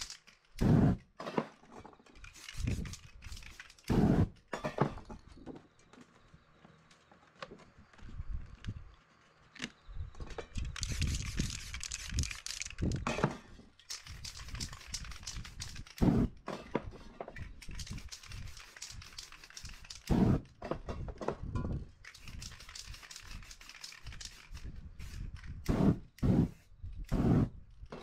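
Aerosol spray paint cans hissing in bursts, with the longest hisses about a third of the way in and again past the middle. Several short knocks and thumps come between them and are the loudest sounds.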